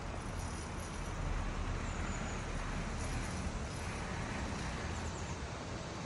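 Steady wind rush and low rumble on the microphone of a rider on an open chairlift.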